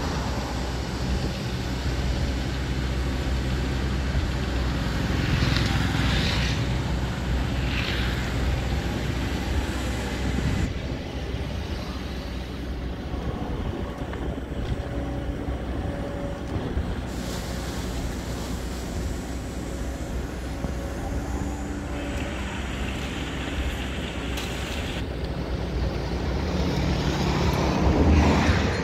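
Kobelco SK200 crawler excavator's diesel engine running steadily under load as it digs mud and swings. It swells to its loudest near the end as a bucket of mud is dropped into a dump truck.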